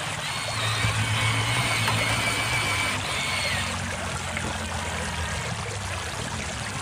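Electric motors of radio-controlled toy excavators whining as the machines work, the pitch stepping up and down as the controls change, with water trickling.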